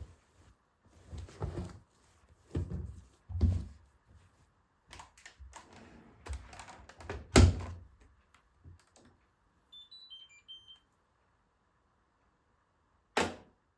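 Hoover H-WASH 500 washing machine being handled and set before a wash: a run of irregular knocks and clicks, then a few short electronic beeps about two-thirds of the way through, and one sharp loud click near the end.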